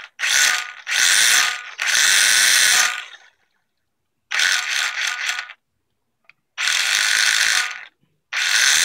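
Castle brushless motor and drivetrain of a Traxxas Slash 2WD RC truck run in about six short throttle bursts, each half a second to a second and a half long. This is the noise of a broken differential, with the truck unable to drive.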